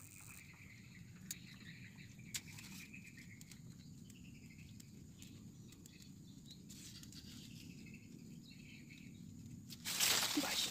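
Quiet swamp ambience: a low steady rumble with faint bird calls and a couple of small clicks. A loud rustling starts near the end.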